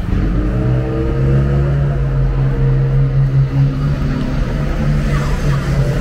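A motor vehicle's engine running close by in city street traffic. Its pitched drone slowly drops over the first few seconds, then fades.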